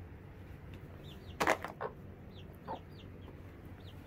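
Chickens feeding: chicks peeping over and over in short high falling notes, with a few short low clucks from the adult birds, the loudest about a second and a half in.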